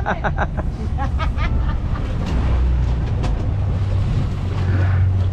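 Boat's outboard motor running at a steady low speed, with wind buffeting the microphone and water rushing past the hull.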